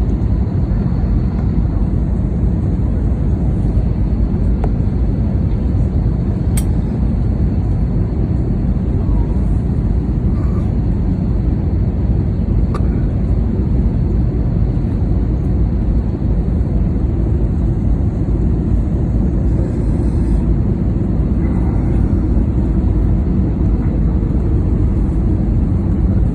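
Steady roar of a Cebu Pacific airliner's engines and rushing air, heard from inside the passenger cabin, strongest in the low range, with a couple of faint clicks.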